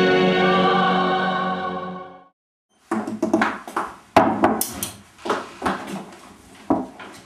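Held chords of the theme music fade out about two seconds in. After a short gap come irregular knocks and clinks of a plate and a glass beer mug set down on a kitchen table, and of a knife and fork on the plate.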